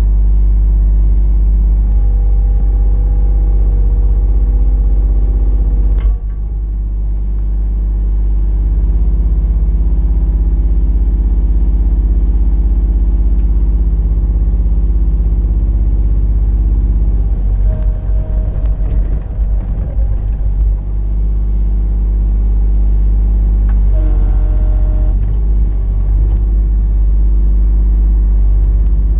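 Mini excavator engine running steadily, its pitch and load shifting several times as the machine is worked, with a rough, uneven stretch around two-thirds of the way through.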